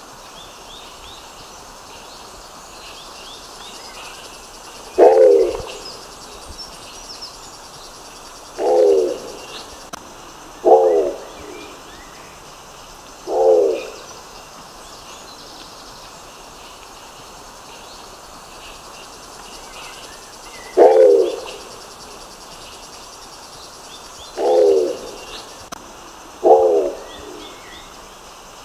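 Nicobar pigeon giving short, low calls, seven in all, in two runs with a pause of several seconds between them. Faint high chirps sound in the background.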